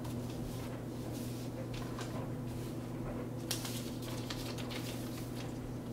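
Fabric and paper rustling as a hoodie and a sublimation transfer sheet are handled and positioned on a heat press, with a louder rustle about three and a half seconds in, over a steady low hum.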